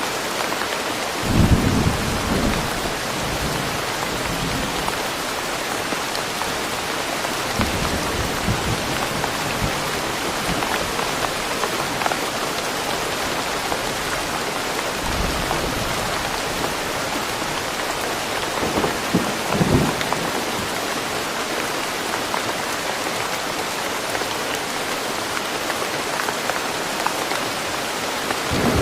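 Steady rain falling in woodland, an even dense patter throughout. A few short, louder low thuds break through, about a second and a half in, around twenty seconds in, and at the end.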